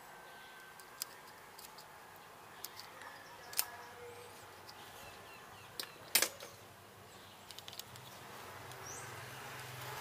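Scattered small clicks and taps of plastic parts and hand tools being handled, the sharpest about three and a half and six seconds in, over a faint low hum that grows toward the end.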